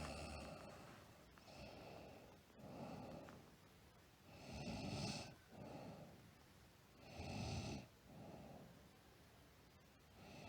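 A sleeping girl snoring in slow breaths. Two stronger snores come in the middle and a third starts near the end, each followed by a softer breath out.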